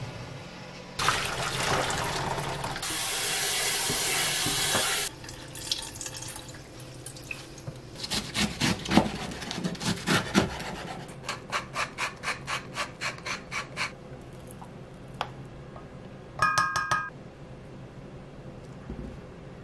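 Water pours and splashes into a kitchen sink for about four seconds. Then comes a knife cutting blanched chamnamul on a wooden cutting board: a few uneven chops, then a steady run of about four strokes a second. Near the end there is a brief high squeak.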